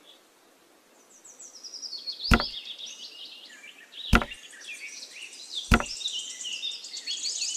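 Three sharp knocks, spaced about a second and a half to two seconds apart, as small model wall panels are set down upright on their base. Birds chirp high behind them.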